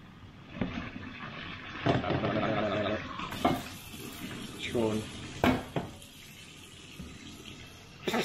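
Washing up at a sink: tap water running and splashing, with several sharp clinks and knocks of dishes.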